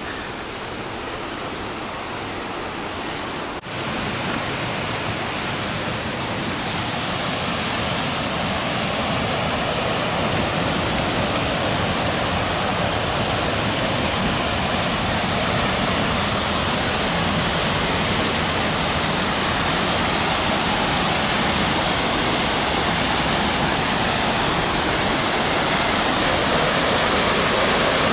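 Waterfall and river rapids rushing: a steady roar of falling water that grows louder over the first several seconds, with a brief dropout about three and a half seconds in.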